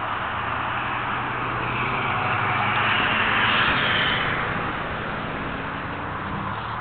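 A motor vehicle driving past, its engine and tyre noise swelling to a peak about halfway through and then fading, over a steady low engine hum.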